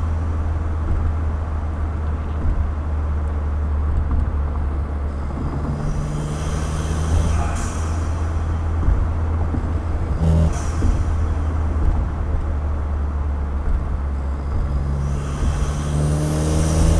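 2015 Ford Fiesta ST's turbocharged 1.6-litre four-cylinder engine with an aftermarket cold air intake, heard from the engine bay and exhaust while driving: mostly a steady low drone with road noise. The engine note rises briefly a couple of times in the middle and climbs again near the end as the car accelerates.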